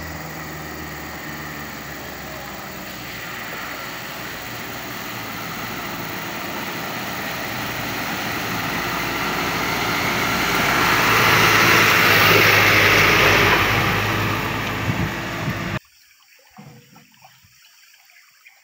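Mitsubishi dump truck's diesel engine running as it drives through floodwater, a steady rising noise of churned, splashing water that is loudest as it passes close by. The sound cuts off suddenly near the end, leaving only faint background sounds.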